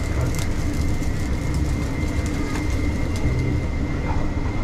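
Steady low mechanical rumble with a thin, steady high whine over it, and a few faint clicks as a long knife shaves meat off a vertical döner spit into a brass tray.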